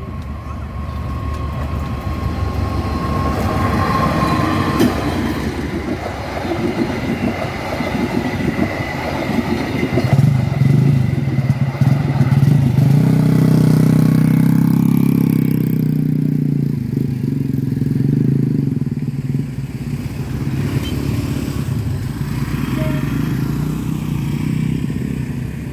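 Diesel-hauled passenger train passing close by: wheels clattering along the rails under a low engine drone that is loudest in the middle, then easing as the coaches go by.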